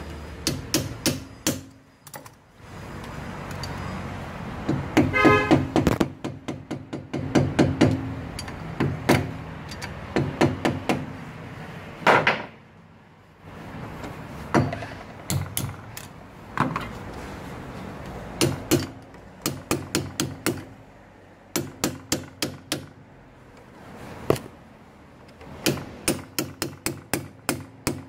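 Hand tools tapping, prying and clinking against the metal rear wheel hub and brake drum of a Kia Bongo III, in irregular runs of sharp metallic taps and knocks, some ringing briefly. A quick run of taps comes near the end.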